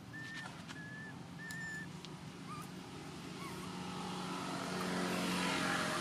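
A motor vehicle passing, its engine growing louder toward the end and loudest as it goes by. A few short, high chirps sound near the start.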